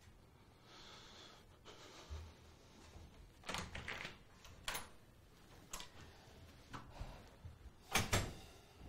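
Faint shuffling and a few light knocks of someone walking out of a room, then an office door shutting with a loud double knock near the end.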